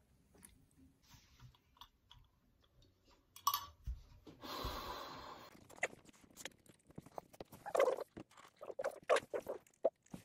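Typing on a MacBook Air laptop keyboard: soft, uneven key taps that start a little past halfway and grow louder and more frequent near the end.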